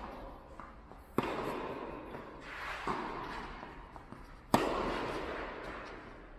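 Tennis ball struck by racquets in a rally: two sharp hits about three and a half seconds apart, the later one a backhand, with a softer knock between them. Each echoes and fades slowly in the large hall.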